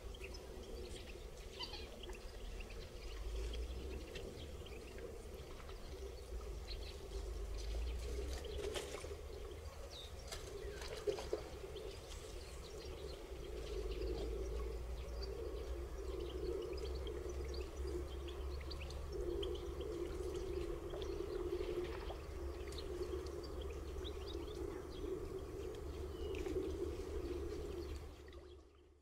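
Wetland ambience: scattered short chirps of small birds over a steady low rumble and hum, fading out near the end.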